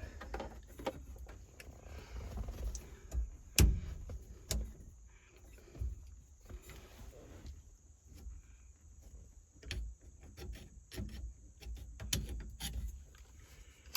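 Scattered clicks and knocks of a replacement turn signal switch being pressed and worked down into a steering column, with the sharpest knock a few seconds in, over a low rumble.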